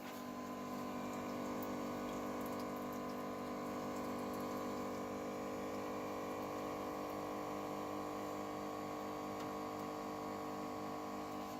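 Grobo One grow box's small water pump running steadily with a hum, filling the machine's reservoir with water.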